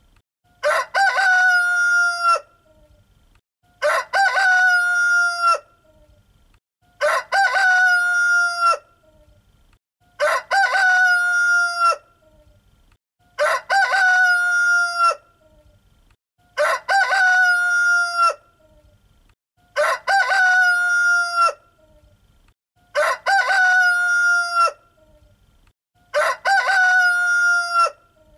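Rooster crowing cock-a-doodle-doo, nine times at even intervals about three seconds apart. Each crow is alike, with near silence between.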